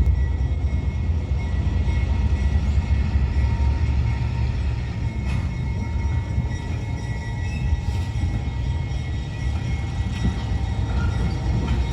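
Freight train of flatcars rolling past: a steady low rumble of wheels on rail, with a few short knocks and faint steady high-pitched tones above it.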